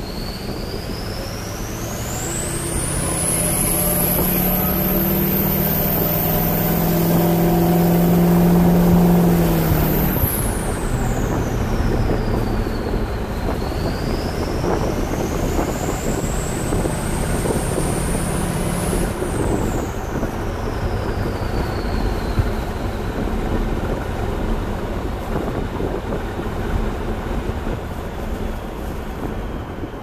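Ford 6.0 Powerstroke turbo diesel with a KC Turbos 10-blade turbo, heard from inside the cab: a piercing, high-pitched turbo whistle climbs as the truck pulls and holds high. It drops off about ten seconds in, climbs again, then winds down about two-thirds of the way through, over the steady drone of the diesel.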